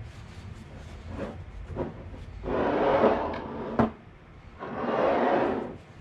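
A damp paper towel rubbing around the rim of a glass canning jar, in two swells of about a second each, with a sharp knock between them as a filled jar is set down on the board. The rims are being wiped clean so the lids will seal.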